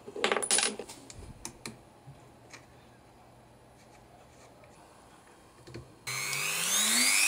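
Pliers clicking and scraping on a Dremel rotary tool's metal collet nut as the bit is changed, then a few faint clicks. About six seconds in, the Dremel switches on and spins up, its whine rising steadily in pitch.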